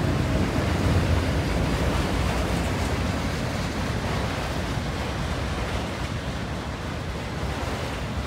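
Freight train of autorack cars rolling past at steady speed: a continuous noise of steel wheels on the rails, strongest in the low end, easing slowly in level.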